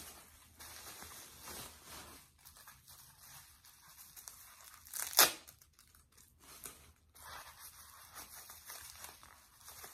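Wrapping on a small packed item being torn and crinkled open by hand, in scattered crackles, with one sharp loud rip about five seconds in.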